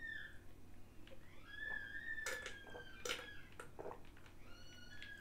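Faint swallowing gulps and knocks of a person drinking from an aluminium jug. Three times, a high whistling tone that bends slightly sounds for about a second: once at the start, once about two seconds in, and once near the end.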